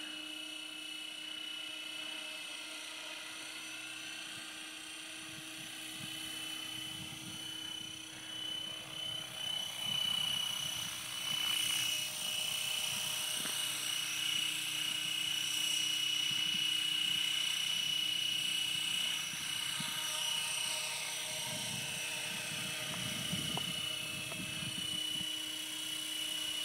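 Swift 16 RC helicopter in flight: a steady high whine from its motor and rotors. It gets louder from about ten seconds in, with the pitch sweeping up and down as the helicopter comes low and passes close, twice.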